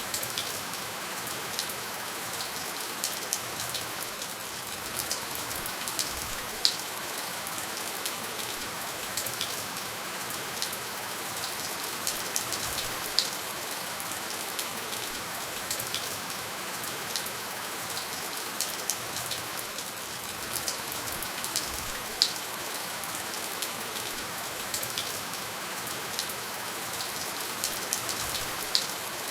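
Steady gentle rainfall without thunder: an even hiss of rain with scattered sharp, close drop ticks, a few of them louder, about a third, halfway and three quarters of the way through.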